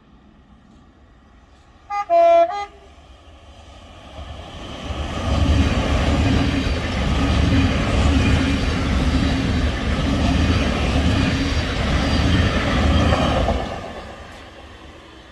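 Thameslink Class 700 electric multiple unit sounding a short two-tone warning horn, high note then low, about two seconds in. It then passes close by: the rumble of its wheels on the rails builds from about four seconds, stays loud for about eight seconds, and fades away near the end.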